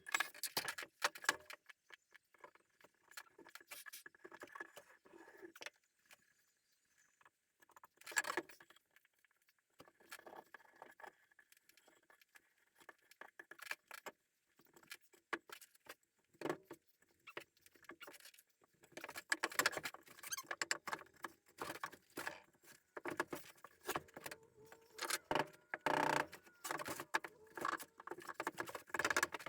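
Irregular clicking, clattering and rubbing of hand work with wood and tools, in clusters with short pauses, busiest in the last third.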